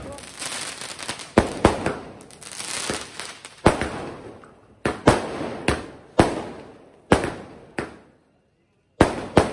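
Aerial fireworks going off: a dozen or so sharp bangs at uneven intervals, with crackling between them, and a brief gap of silence about eight seconds in.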